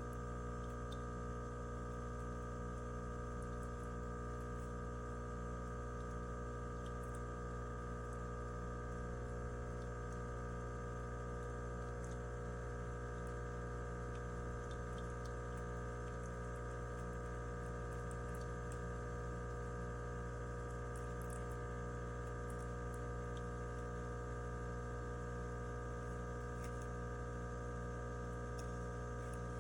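Steady, unchanging hum made of many fixed tones, with faint scattered ticks.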